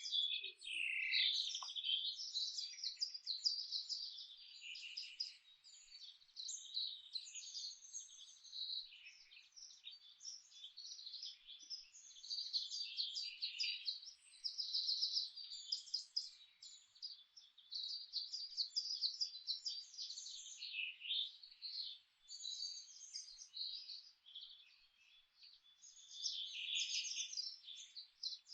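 Songbirds singing in a dense chorus: many quick overlapping chirps and trills, high-pitched and continuous, with brief dips between phrases.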